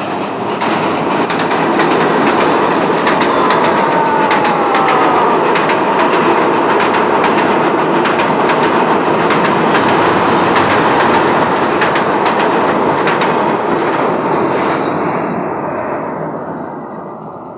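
Bangladesh Railway intercity passenger train crossing a steel truss railway bridge at close range: a loud steady rumble with wheels clattering over the rail joints. It swells in the first second and fades over the last few seconds.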